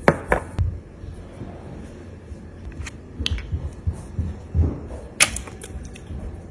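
Small containers and caps being handled on a stone countertop: a few sharp clicks and taps, the loudest about five seconds in, with soft knocks and rustling between.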